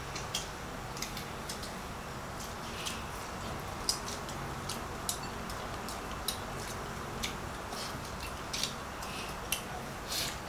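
Small eating sounds from people eating rice and fish with their fingers off ceramic plates: scattered light clicks and taps, about one a second at uneven spacing, over a steady low room hum.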